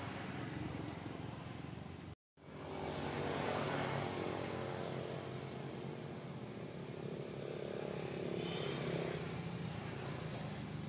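Steady outdoor background rumble with a low hum in it, which cuts out completely for a moment about two seconds in.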